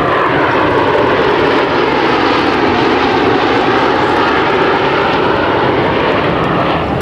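Four F-16 Fighting Falcon jets, their Pratt & Whitney F100 turbofans running as they fly overhead in tight diamond formation: a loud, steady jet roar whose pitch sinks slightly over the first few seconds as they pass.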